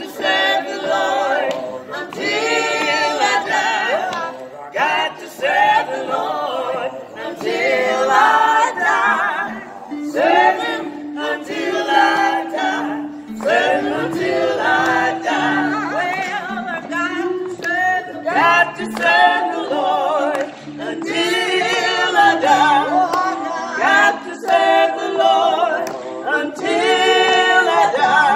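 A small mixed group of older women and a man singing a song together a cappella, phrase after phrase without pause.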